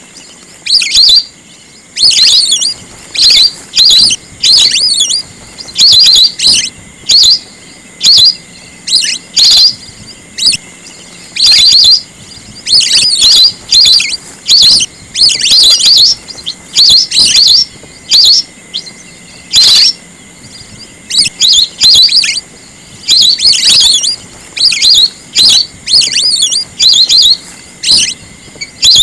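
Whistling ducks (belibis) calling: loud, shrill whistled calls in bursts of about half a second to a second, repeated roughly every second with short gaps between, the kind of recording played as a lure for the birds.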